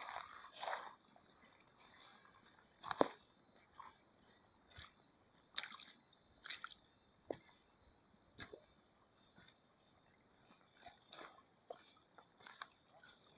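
Steady, high-pitched chorus of crickets or similar insects, with scattered footsteps and snaps on the forest floor, the loudest about three seconds in.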